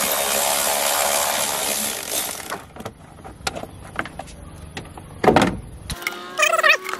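Cordless electric ratchet running steadily for about two and a half seconds as it backs out a bolt, then stopping; light clicks and one brief loud clatter of parts being handled follow.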